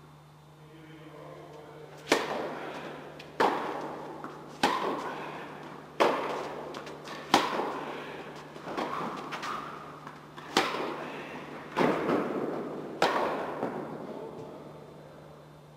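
Tennis ball struck by rackets in a rally, a sharp hit about every 1.3 seconds with softer bounces between, each echoing in a large indoor tennis hall. A steady low hum runs underneath.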